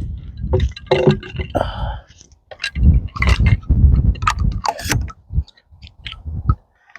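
Wind buffeting the microphone in gusty surges, with a short distant call about a second in and scattered sharp ticks.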